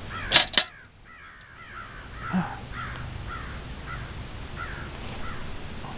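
Crows cawing in a steady run of short calls, about two a second, growing fainter. Two sharp knocks sound about half a second in.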